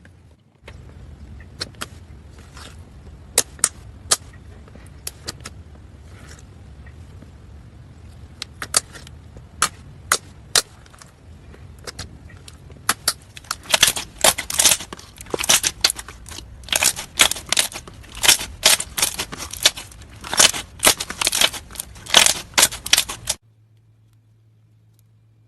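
Slime being squeezed and pressed, giving crisp clicking and popping from trapped air. The pops are scattered at first, then come thick and fast in the second half before cutting off suddenly near the end.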